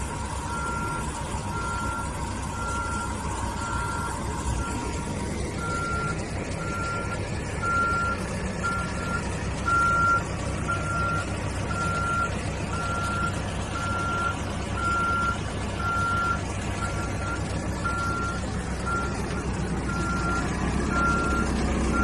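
Back-up alarm beeping at a steady pace, about once a second, over the low running of a diesel engine in a Caterpillar 432F2 backhoe loader.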